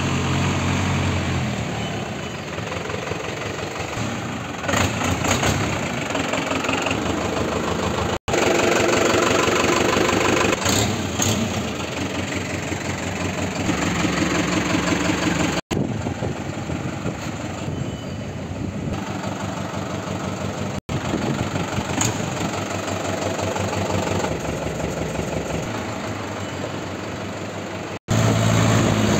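Tata LPT 407 light truck's diesel engine running, idling and driving, in several joined stretches broken by four brief gaps.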